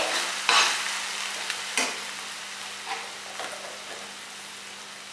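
Chopped onion and sauce mixture sizzling in a stainless steel pan as a steel ladle stirs through it, with a few sharp scrapes of the ladle against the pan in the first few seconds. The sizzle and stirring slowly die down.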